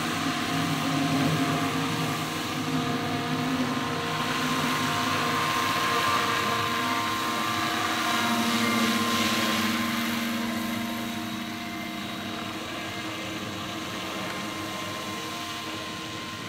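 Radio-controlled scale model helicopter, a Bell 412 twin Huey replica, in flight: a steady hum of several pitches with rotor hiss. It grows loudest about eight to ten seconds in as it passes closest, then eases off as it moves away.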